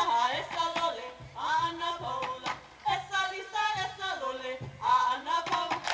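Hawaiian chant for a kahiko hula: a chanter's voice in held, wavering phrases over regular drum strikes keeping the beat.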